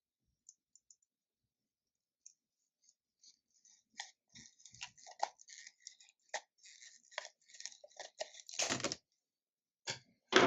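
Packaging of a microSD card being handled and opened close up: a run of crinkling, crackling and clicks starting about four seconds in. There is a longer, louder crinkle near the end and then a sharp click.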